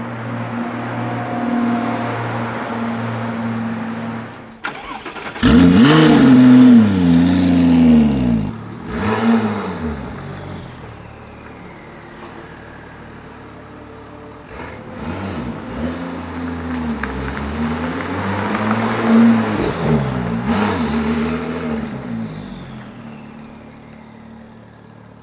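Modified Porsche 997 GT2's twin-turbo flat-six through an Akrapovic exhaust. It runs steadily at first, then is revved hard in repeated blips that rise and fall. After a quieter stretch it is revved several more times and fades away as the car drives off.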